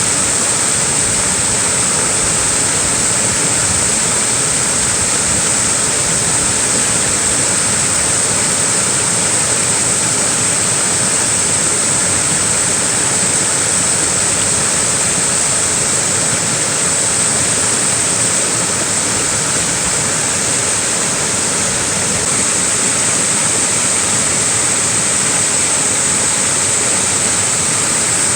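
Small waterfall pouring steadily, a constant rush of falling water.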